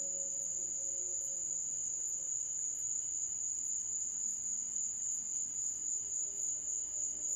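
A steady, high-pitched chorus of night insects, crickets, trilling without a break.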